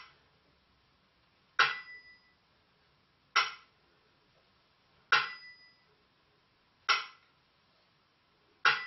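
Burmese si-wa time-keeping beat: one sharp stroke about every 1.75 seconds, five in all. Small hand cymbals (si) ring on after the first, third and fifth strokes, and a dry bamboo clapper (wa) strikes in between.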